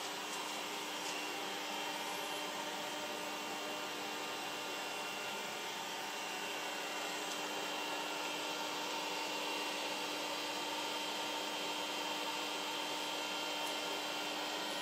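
Cooling fans of an Apple Xserve (2008) server and Xserve RAID running: a steady rush of air with a constant low hum and a faint high whine in it.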